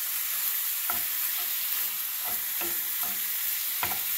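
Ground beef sizzling steadily in a cast-iron skillet while a wooden spoon stirs it, with a few knocks of the spoon against the pan.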